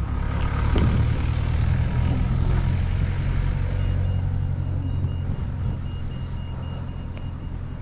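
Road traffic engines running with a low, steady rumble, loudest in the first few seconds. A faint, rapid high-pitched beeping like a reversing alarm starts about four seconds in.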